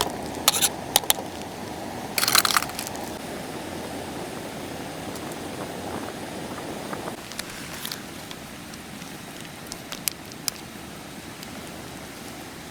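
Wood fire crackling, with scattered sharp pops and a longer crackly burst about two seconds in, over a steady low rushing that eases off about seven seconds in.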